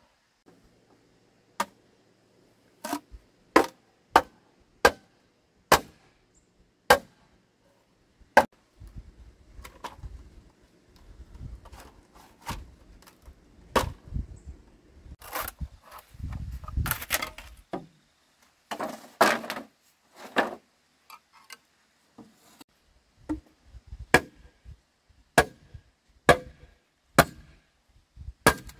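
Repeated sharp chopping strikes on bamboo, about one a second, with a noisier stretch of rustling and knocking in the middle.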